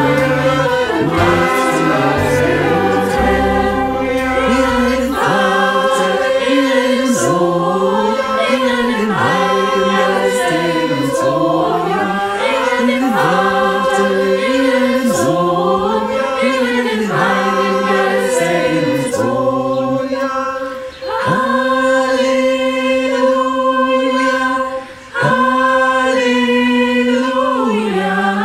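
A mixed virtual choir of men's, women's and children's voices singing a worship song together, with low bass notes under the first few seconds. The singing breaks off briefly twice near the end.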